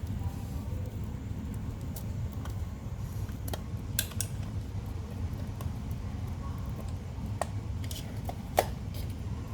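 Scattered sharp metal clicks and light scraping as a small screwdriver pries at the metal lock clips on a car radiator cooling fan's electric motor, over a steady low hum.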